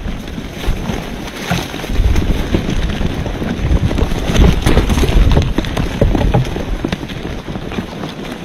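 Wind buffeting the microphone in irregular gusts, with scattered clicks and knocks.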